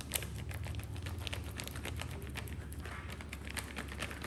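Rapid, irregular light clicks and taps of hands and utensils working with flour in a bowl, over a low steady hum.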